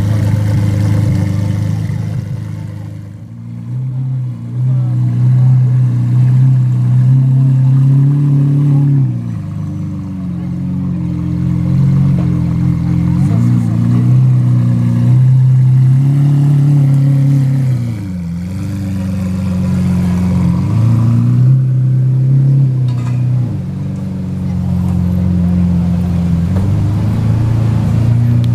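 Lamborghini Aventador Roadster's 6.5-litre V12 with an aftermarket exhaust, standing still. It runs at idle and is revved four times, each rev held for a few seconds before dropping back to idle.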